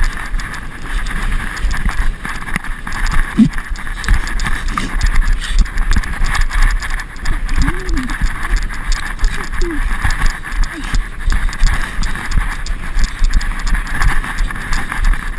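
Strong gusty wind buffeting the microphone, a rumbling that surges and drops irregularly over a steady background hiss.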